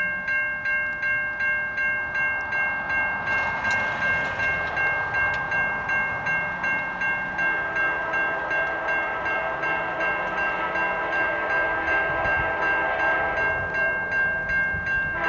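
Railroad grade-crossing warning bell ringing steadily, about two and a half strikes a second. From about halfway an approaching train's horn comes in faintly beneath it and holds.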